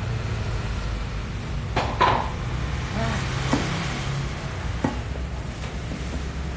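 A spoon knocking against a metal mixing bowl a few times while a fish-paste mixture is stirred, the loudest clink about two seconds in, over a steady low rumble.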